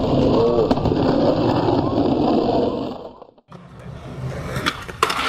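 A loud, dense noise with voices in it that cuts off abruptly about three seconds in. After a brief silence comes skateboard rolling, with several sharp clacks of the board near the end.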